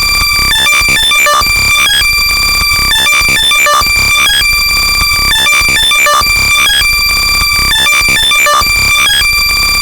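Very loud, heavily compressed and distorted electronic tone, several high pitches held steady at once, chopped into a repeating stutter by a slicer effect: a sound made for locating lost AirPods.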